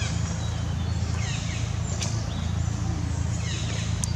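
Outdoor ambience with a steady low rumble, over which a bird gives short falling chirps twice, with a couple of sharp clicks.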